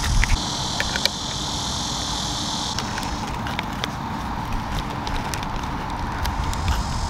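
Steady outdoor background noise with a low rumble, over which come a few light clicks and taps as a portable water pump and its silicone hose are handled and fitted onto a plastic water bottle.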